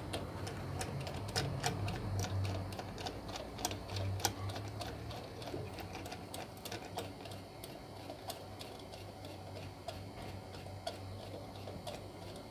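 Irregular light metallic clicks and ticks from a hand tool worked on the shaft end of a Myers 2C200 pump's electric motor. They come thickest in the first five seconds, over a low steady hum.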